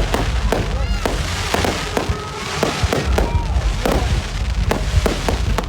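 Fireworks display: aerial shells bursting in a rapid, irregular series of bangs, several a second, with whistling glides between them.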